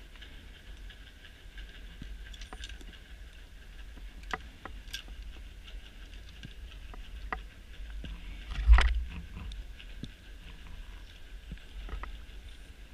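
Underwater ambience picked up by a diver's camera: a steady low rumble and faint whine, with scattered sharp clicks and one louder thump about nine seconds in.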